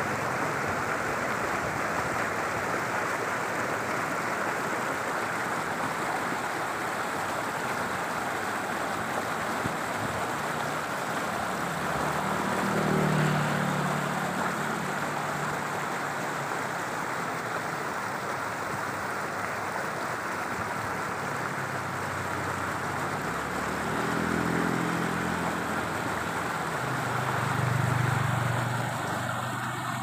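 Steady rushing outdoor hiss, with the engine hum of passing vehicles swelling and fading three times: a little before halfway, about two-thirds through, and near the end.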